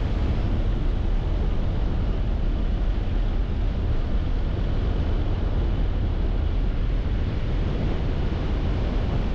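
Car driving along a street: a steady low rumble of engine and road noise.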